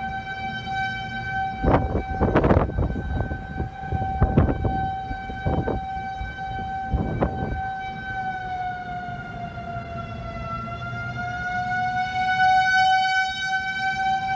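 Outdoor tornado warning siren sounding a steady wail, its pitch sagging and climbing back about ten seconds in; it signals a tornado warning. A few sudden loud thumps break in during the first half.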